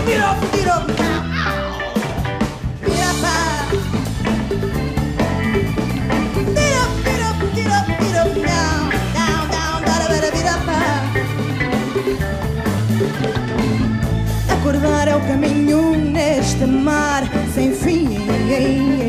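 Live band playing a song with electric guitars, bass and drums, with a woman singing over it in the later part.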